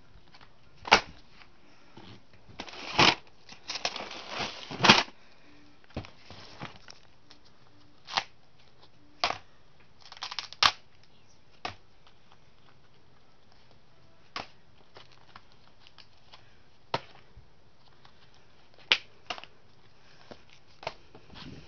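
Cardboard LP record sleeves being flipped through and handled, giving irregular slaps and rustles. They come in a busy cluster a few seconds in, then as single sharp taps every second or two.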